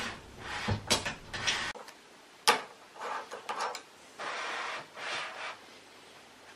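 Metal nuts and a linear rail being handled against an aluminium extrusion: a few sharp clicks, the sharpest about two and a half seconds in, and short scraping rubs as the nuts are pushed along the profile's slot.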